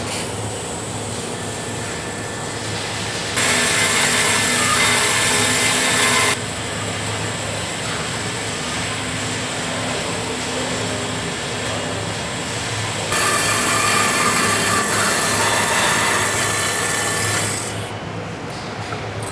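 Automatic metal-cutting bandsaw running in a shop, cutting bushing stock: a steady machine hum, with two louder spells of a few seconds each, about three and a half seconds in and again about thirteen seconds in, carrying a bright hiss and steady high tones.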